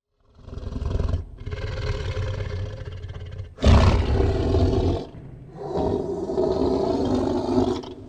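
Tiger roaring: four long, deep roars in a row, the loudest about halfway through.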